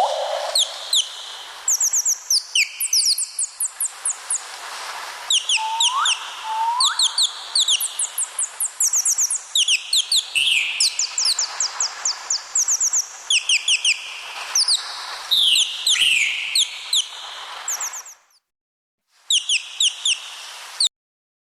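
Birds chirping and twittering in rapid runs of short high notes, with a few rising whistles mixed in; the calls break off briefly near the end, resume, then stop.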